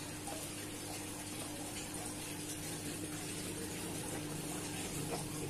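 Steady hiss of water boiling under a steamer pot, with a faint low hum. A couple of faint knife taps on the plastic tray come near the end.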